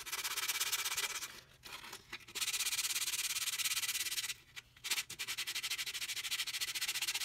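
220-grit sandpaper rubbed by hand over vegetable-tanned leather: a dry, hissing scrape of rapid short back-and-forth strokes, in three runs with brief pauses between them.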